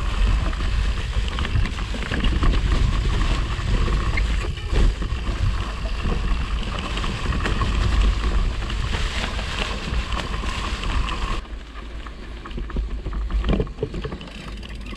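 Mountain bike riding a trail covered in dry leaves: wind rumble on the action-camera microphone over the tyres rolling through the leaves. About eleven seconds in the rumble drops abruptly, and a few knocks follow near the end.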